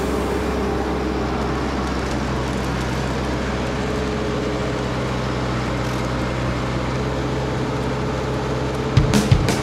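Tractor engine running steadily at constant speed, with a couple of sharp knocks near the end.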